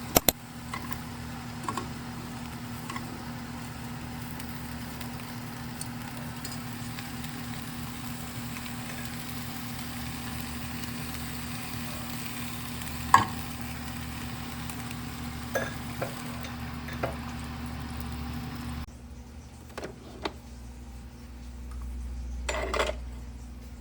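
Food sizzling in a frying pan: a steady hiss over a constant hum, with a few sharp clicks, that stops abruptly about 19 seconds in.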